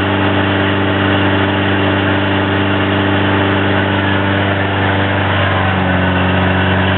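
Toyota 22R four-cylinder engine running on wood gas at a steady speed, driving an induction-motor generator. It makes a loud, even hum, and the pitch shifts slightly about six seconds in.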